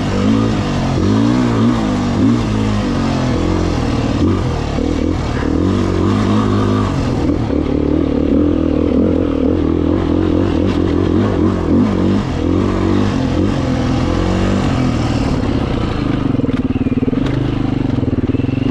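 2018 Beta 500RR single-cylinder four-stroke dirt bike engine running under constantly changing throttle, its pitch rising and falling as it is ridden.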